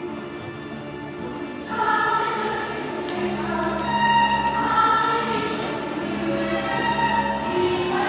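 Music with choral singing in long held notes, growing louder about two seconds in.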